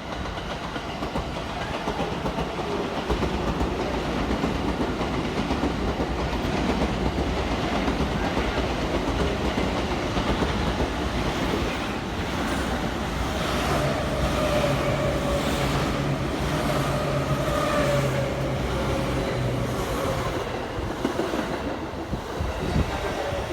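Electric train running on the station tracks, wheels clattering over the rail joints. A steady motor tone joins in for several seconds in the middle.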